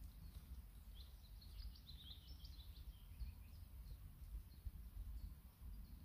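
Faint birdsong in woodland: a run of quick, high chirps in the first half, over a steady low rumble.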